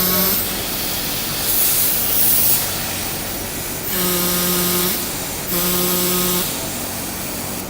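Rebuilt hydraulic control valve being worked under pressure: a steady pitched whine comes on in two spells of about a second each past the middle, and a spell of high hissing comes about two seconds in.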